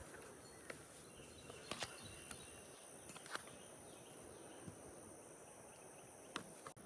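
Faint outdoor ambience: a steady high-pitched insect drone over a light hiss, with a few scattered light clicks.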